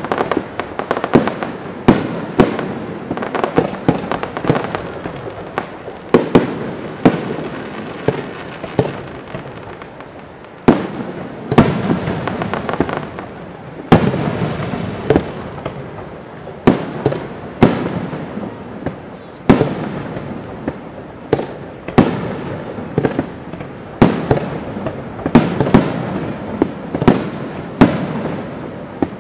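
Aerial fireworks shells bursting in a steady barrage: sharp bangs one to two a second, each trailing off, with a brief lull about eight seconds in before a loud bang.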